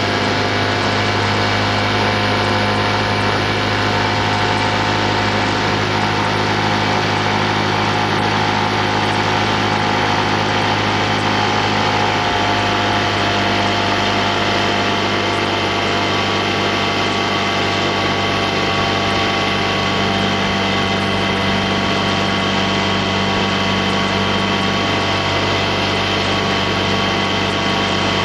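Small boat outboard motor running steadily at constant speed, its pitch shifting slightly about twelve seconds in.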